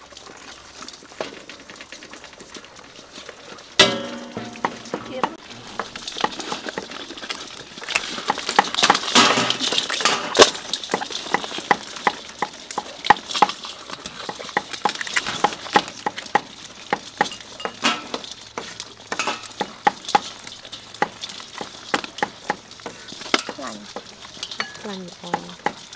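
Live crabs clicking and scraping against a stainless steel bowl as hands sort through the pile and work on their legs and claws. The shells and legs make dense, irregular clatter, busiest a few seconds in. A brief voice is heard just before 4 s and again near the end.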